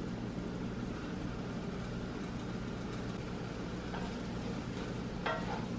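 Steady low mechanical hum, with two short faint sounds near the end.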